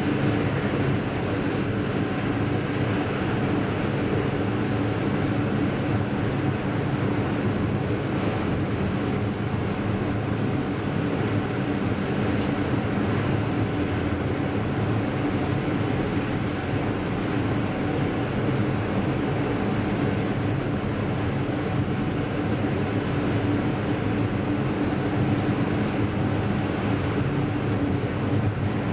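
A 1985 KONE inclined elevator car, upgraded, travelling along its sloping shaft: a steady running noise with a low hum that holds unchanged throughout.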